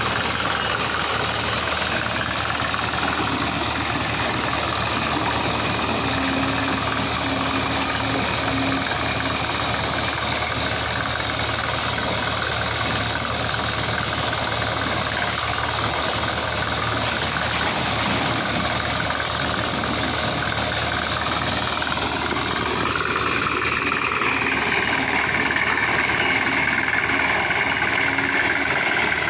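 Excavator engine running steadily, its tone shifting about three-quarters of the way through.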